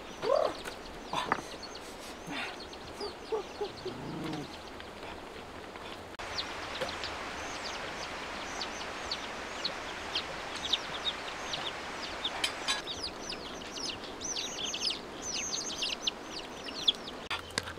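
Ducklings peeping: many short, high, falling calls, few at first and coming thick and fast from about a third of the way in.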